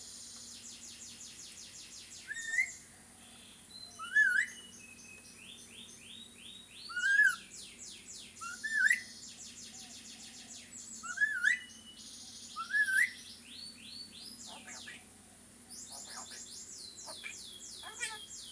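A pet talking bird giving short, loud rising whistles, six of them about every two seconds, with rapid high chirping trills in between. A few sharp clicks come near the end.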